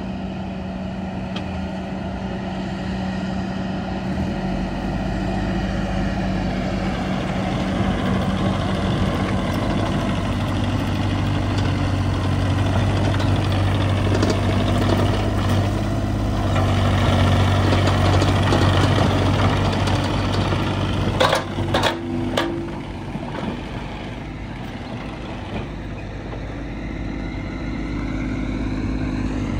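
Bobcat E35i mini excavator's 24.8 hp diesel engine running under hydraulic load while the boom, arm and bucket are worked, building louder through the middle and easing off later. A few sharp metal clanks come about two-thirds of the way through.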